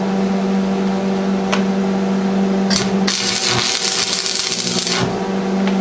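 Electric arc welder running a brief test bead with the current turned down a notch: a couple of short crackles as the arc is struck, then about two seconds of steady arc crackle from about three seconds in. A steady electrical hum sits under it.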